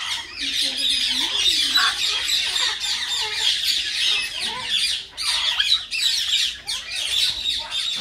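Common myna chattering: a dense, unbroken run of squawks, squeaks and gliding whistles, with a few lower wavering calls in the first two seconds.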